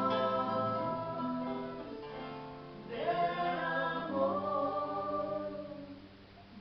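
Music with several voices singing together over a plucked guitar, in long held notes; the singing fades near the end.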